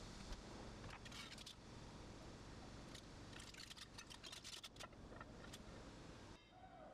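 Quiet room hum with two short runs of light metallic clicks and clinks, about a second in and again around four seconds in, as a flat aluminium plate is shifted and set down on the CNC mill's table.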